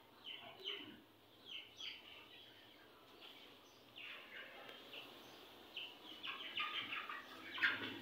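A flock of chickens calling: scattered short high calls at first, becoming more frequent and overlapping over the last two seconds.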